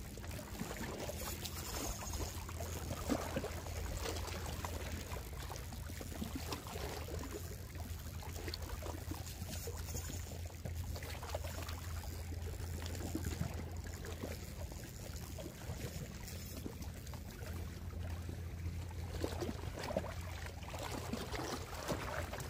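Shallow water lapping and sloshing around wading legs, with irregular small splashes over a low steady rumble.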